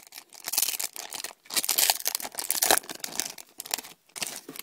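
The foil wrapper of a Pokémon TCG booster pack crinkling and tearing as it is worked open by hand, in uneven crackling spurts that are loudest in the middle. The pack is hard to tear into.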